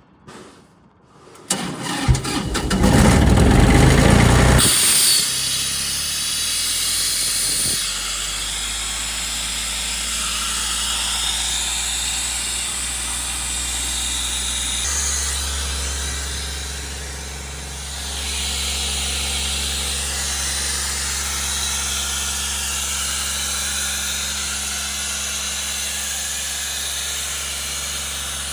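Doosan 7/31E compressor's three-cylinder Yanmar diesel cranked on the starter and catching about two seconds in. It runs loud for a few seconds, then settles to a steady run with a high hiss over it. Its note drops about eight seconds in and shifts again around fifteen seconds.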